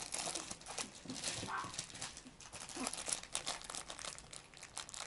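Bichon puppy chewing and mouthing a crinkly fabric toy: soft, irregular crinkling and rustling with small clicks.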